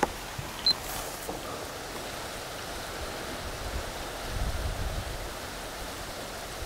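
Wind blowing over the microphone as a steady rushing noise, with a stronger low gust about four seconds in. A couple of short clicks sound in the first second.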